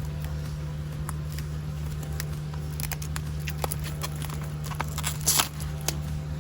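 Scattered clicks and taps of a charging-cable box and its packaging being opened and handled, with a louder brief crinkling rustle about five seconds in, over a steady low hum.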